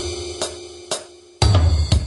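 Instrumental music with drums: a sustained mid-pitched tone over light, sharp percussion hits, then a heavy kick-drum and bass hit about one and a half seconds in.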